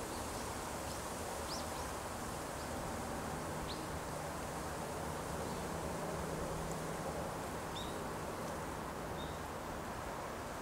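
Steady outdoor background hiss, with a few faint, short high chirps scattered through it and a low hum in the middle.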